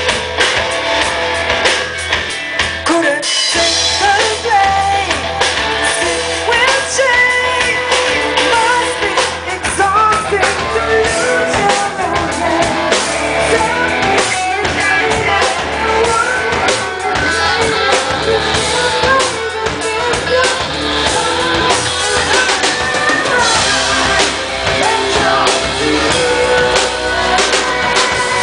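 Live rock band playing, with a woman singing lead over drums, electric bass and keyboard.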